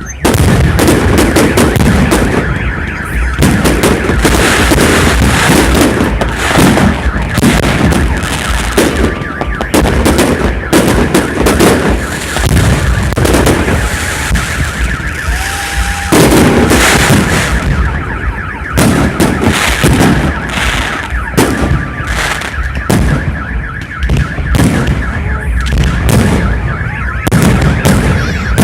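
Festive fireworks salute going off, a dense run of bangs and crackling with no gaps. A steady high-pitched tone runs under the bursts.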